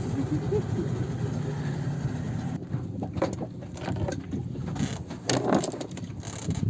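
Boat engine idling with a steady low hum that drops away about two and a half seconds in, followed by a run of sharp clicks and knocks.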